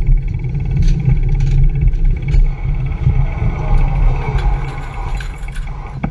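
City street noise heard from a moving bicycle: traffic and wind on the microphone make a heavy, steady low rumble, with a few sharp clicks and knocks.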